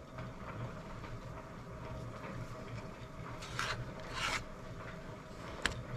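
A pen drawing a line on wooden boards along a scrap-wood straightedge: two short strokes a little past halfway, then a brief click near the end.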